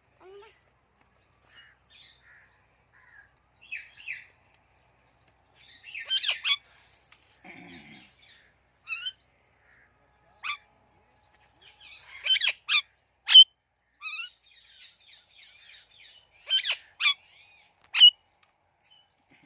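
Pet parrot chirping: short, sharp, high calls in irregular clusters with quiet gaps between, the loudest calls coming in the second half.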